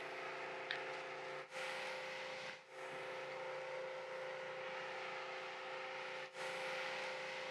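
Steady mechanical hum with a constant tone, dropping out briefly a few times.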